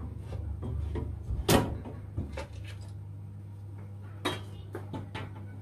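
A few sharp, irregular clicks and knocks from hand work on copper heating pipes, over a steady low hum. The loudest knock comes about one and a half seconds in and another near four seconds.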